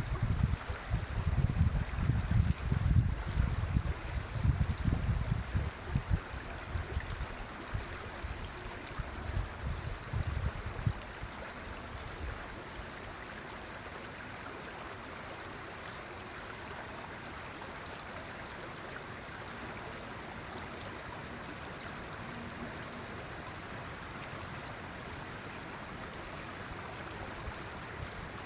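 River water flowing steadily. A gusty low rumble, the loudest sound in the first part, comes and goes and dies away about twelve seconds in.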